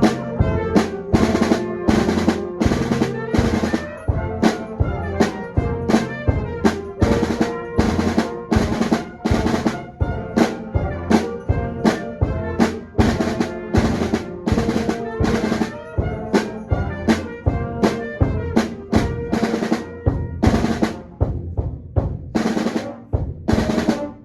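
Concert band playing at full volume, with close-up percussion (sleigh bells and drums) hitting a steady quick beat over held brass and wind notes. The band breaks off at the very end.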